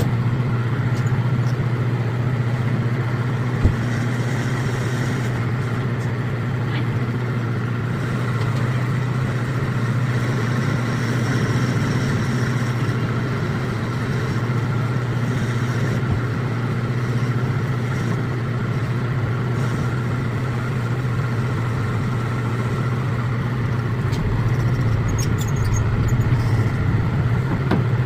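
Metal lathe running steadily with a constant motor and spindle hum while threading a rifle barrel, sped up to double speed. There is a single sharp click about four seconds in.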